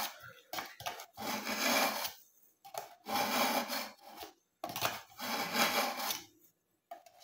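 Steel kitchen knife blade drawn through a slot of a BAUM ZINDECH ZRT-400 manual knife sharpener, the edge scraping against the sharpening stones. Three long strokes of about a second each, with a few short scrapes between them as the blade is set back in the slot.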